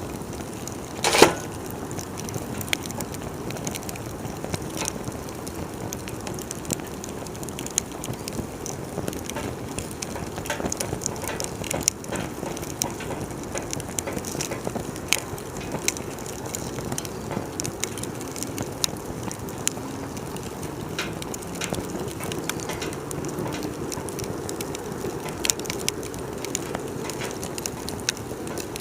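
Wood fire crackling, with irregular snaps and pops over a low steady hiss and one loud pop about a second in.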